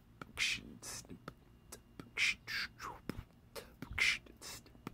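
Short hissing breaths and sniffs close to the microphone, coming about once or twice a second, with small clicks between them.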